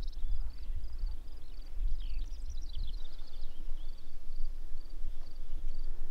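Evening outdoor ambience: a bird sings a short warbling phrase about two seconds in, over a run of short high chirps repeating a few times a second and a low wind rumble on the microphone.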